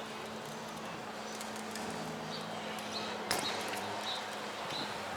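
Faint outdoor background with a steady low hum, a few short high chirps in the second half, and one sharp click about three seconds in.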